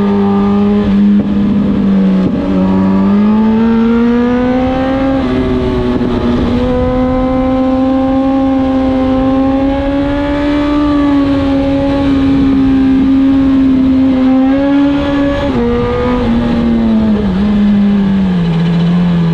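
Suzuki GSX-R 1000 inline-four with an SC-Project CRT exhaust pulling under throttle on the move, with constant wind rush. The engine note climbs about three seconds in, holds high with small rises and dips, then falls in steps near the end as the bike slows and shifts down.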